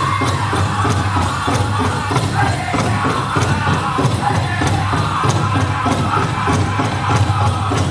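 Powwow drum group singing over a steady, even drumbeat on a big drum, a contest song for the prairie chicken dance.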